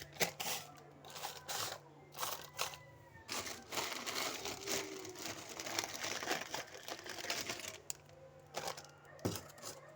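Plastic snack packaging crinkling in irregular short bursts as it is handled, with a few knocks.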